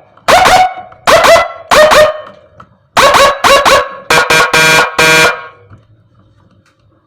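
Electronic siren module sounding through a TOA ZH610S horn speaker: a run of about eight short, loud, bark-like blasts, each dropping quickly in pitch at its start. The blasts stop about two thirds of the way through.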